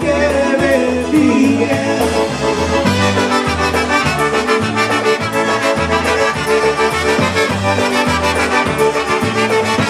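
Polka band playing live: two trumpets play the melody together over a steady bass rhythm.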